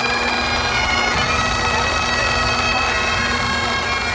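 Pipe band playing: Highland bagpipes sounding a tune over steady drones, with snare drums beneath.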